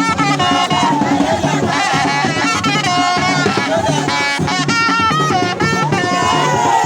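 Music with drums and percussion under a pitched melody line.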